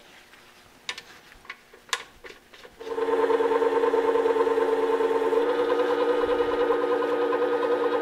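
A bench-top sharpening machine with a horizontal abrasive disc: a few light clicks, then its motor starts about three seconds in and runs with a steady hum. A steel plane iron is held flat on the spinning fine-grit disc, lapping its back.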